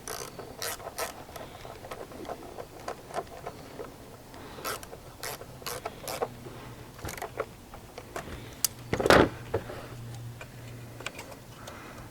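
Irregular clicks and clinks of hand tools, ratchet and socket, working on the spark plugs, with one louder knock about nine seconds in.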